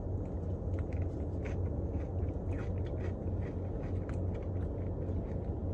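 Faint chewing and small scrapes and clicks of eating a Blizzard, over a steady low hum.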